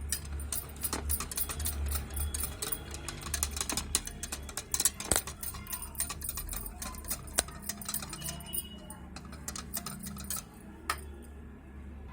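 A utensil clinking and scraping against a bowl as batter is stirred, giving rapid, irregular ticks that thin out near the end.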